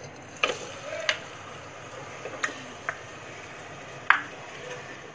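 Marinated chicken being tipped from a glass bowl into a nonstick pan, with about five sharp clicks and knocks of the bowl against the pan spread over a low steady hiss.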